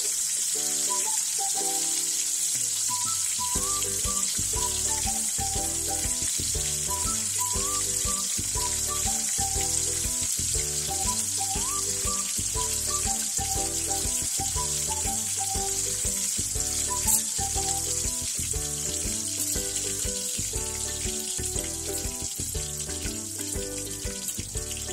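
Lumpiang Shanghai (Filipino spring rolls) frying in hot oil with a steady sizzle, under background music with a steady beat. The music's bass line comes in about three seconds in.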